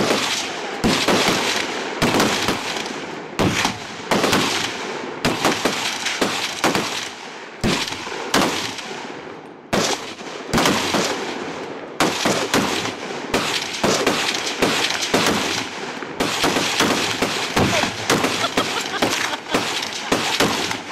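Machine-gun fire in repeated bursts of rapid shots, each burst lasting about a second, with short pauses between them.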